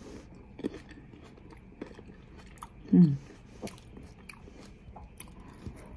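A person chewing and biting into a mouthful of fruit salad, with small wet crunches and clicks. About three seconds in comes one short hum of the voice, falling in pitch.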